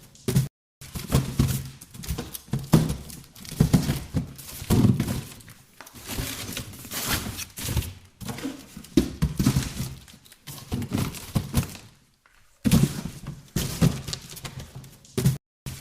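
Cardboard boxes being handled and shuffled through: irregular thuds and knocks as boxes are lifted, shifted and set down, with scraping and rustling between them. There are a few brief cut-outs, the longest about twelve seconds in.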